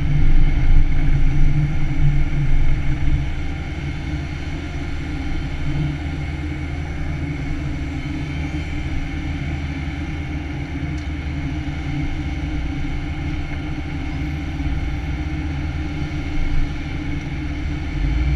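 Takeuchi TB175 excavator's diesel engine and hydraulics running steadily, heard from inside the cab; louder under load for the first three or four seconds, then settling to an even running note as the boom and rotortilt are worked.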